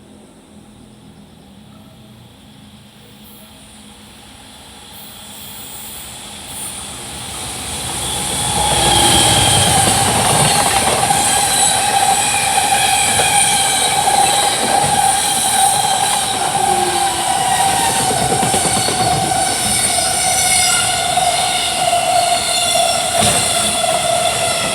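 Freight train approaching and passing at high speed. The noise builds over about eight seconds, then a long line of wagons goes by loudly, with steady high tones over the wheel noise.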